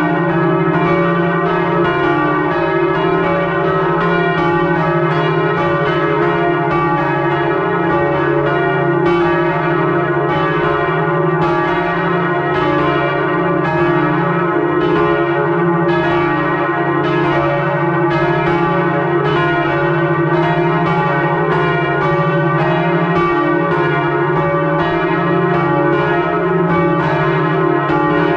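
Several electrically swung church bells ringing in full peal, heard close up inside the belfry: their clappers strike over and over, about one to two strokes a second, the tones overlapping and ringing on without a break.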